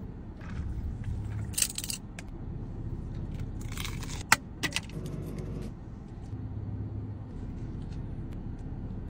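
Steady low rumble of a car idling, heard from inside the cabin, with rustling and crinkling as food and plastic sauce cups are handled, and a sharp click about four seconds in.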